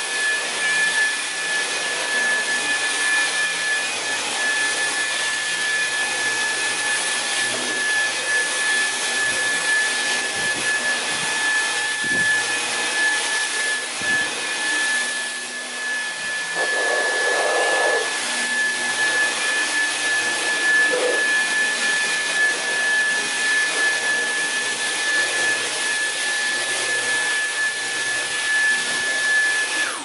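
Dyson V11 cordless stick vacuum running with a steady high whine as its motorised brush head is pushed back and forth over a carpet, sucking up baking soda. The motor switches off abruptly at the end.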